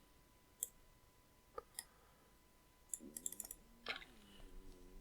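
Faint computer mouse clicks: a few single clicks, then a quick run of several clicks about three seconds in.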